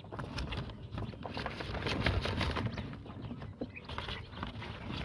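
Quick, irregular light taps and scratchy rustling from small birds moving about, king quail in their pen.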